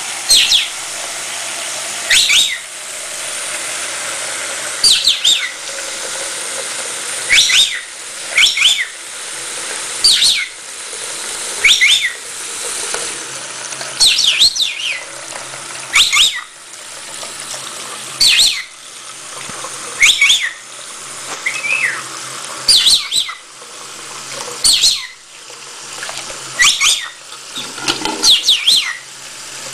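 Green-cheeked conure chittering while bathing: short, sharp chirps every second or two over the steady splashing of a running tap into a sink basin.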